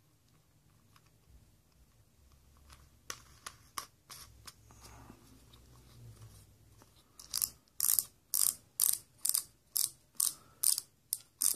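Star drag of a Quantum Escalade baitcasting reel clicking as it is turned back onto the shaft: a few scattered clicks, then from about seven seconds in a regular run of sharp clicks about two a second.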